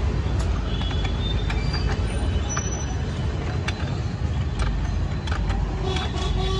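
Steady low rumble of road traffic, with scattered light clicks and clinks.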